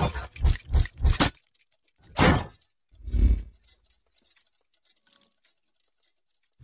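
Logo-intro sound effects: a quick run of clicks and thuds for about the first second, then a whoosh and a deep impact hit about three seconds in, and a faint short tone about five seconds in.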